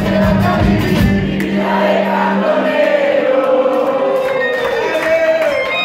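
A live band playing in a theatre: the beat and a held low bass note drop out in the first couple of seconds, leaving a sustained, wavering melody line that slides down in pitch near the end.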